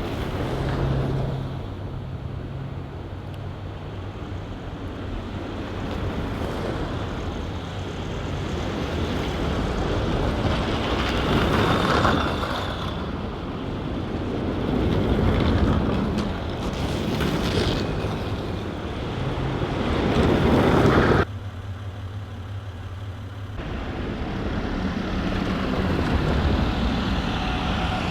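A car driving on a snow-covered road, heard from inside: a steady low engine hum under tyre and road noise that swells and fades several times. The noise drops off abruptly about twenty-one seconds in, then builds again.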